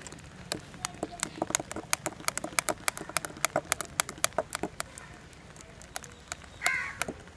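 Metal spoon clinking against a drinking glass and the ice cubes inside it while stirring iced milk and whipped coffee: a quick, irregular run of clinks, about four a second, that dies away after about five seconds. Near the end a crow caws once.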